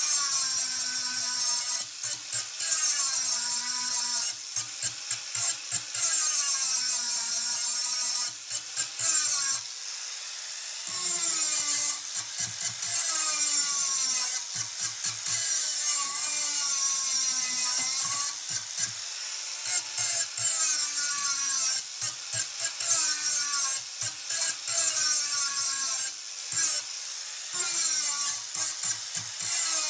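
A handheld power tool rasping against the mower in repeated passes. Its pitch sags and rises every second or two as the tool bogs under load and frees up, with short breaks between passes.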